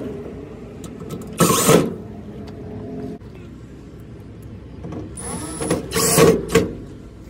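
Cordless drill driving screws through steel L brackets into a pickup bed's sheet-metal side, in two short bursts: one about a second and a half in, a longer one about five seconds in.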